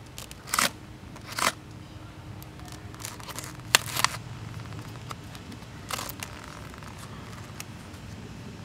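Cutting through duct tape and plastic packaging with a blade: a few short snips and crinkles, scattered irregularly, the loudest about a second and a half and four seconds in.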